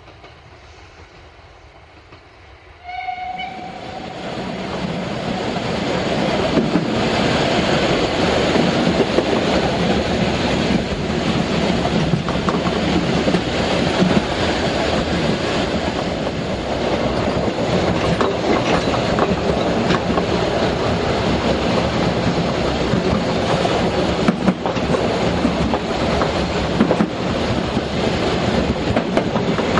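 Narrow-gauge train running along the track, heard from on board at the front: a steady loud rumble with wheels clattering over the rails. It starts suddenly about three seconds in, after a quiet stretch, with a short high tone at the onset.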